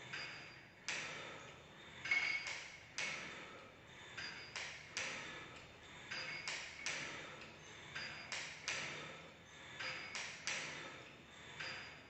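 Short metallic pings and clinks, repeating irregularly about once a second, from the metal weight stack and pulleys of a cable crossover machine worked during kneeling cable chest flyes.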